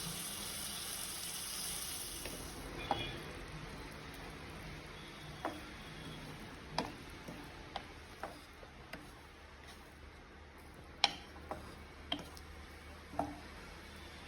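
A wet paste of ground tomato, coriander, curry leaves and garlic frying in ghee in a pan, cooked until its raw smell goes. The sizzle fades after about two seconds, leaving a spoon clicking against the pan now and then as it is stirred.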